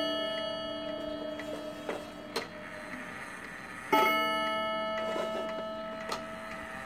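Gold Cup Japanese pendulum wall clock's gong struck once as the minute hand is turned to the half hour by hand, its tone ringing on and slowly dying away. At the start the ring of the previous strike is still fading, and a few light clicks come between the strikes.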